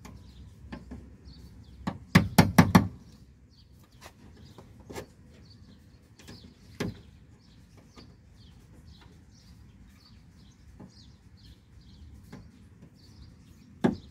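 Sharp knocks from a screwdriver chipping the aluminium rivet heads off a car door speaker mount: a quick run of four loud strikes about two seconds in, then a few single knocks. Birds chirp faintly and repeatedly throughout.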